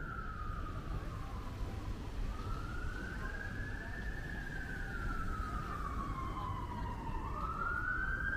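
Emergency vehicle siren on a slow wail, its pitch rising and falling about every five seconds, over a steady low street rumble.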